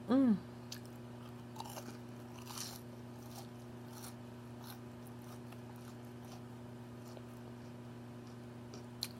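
A short, small burp at the very start, then quiet chewing of fast food with a few faint crunches and mouth clicks, over a steady low hum.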